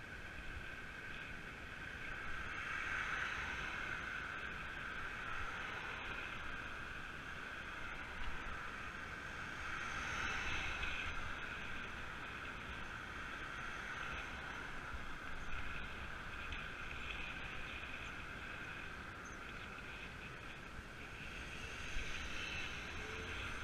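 Steady rushing wind and tyre noise from a road bike riding along a road, swelling gently a couple of times.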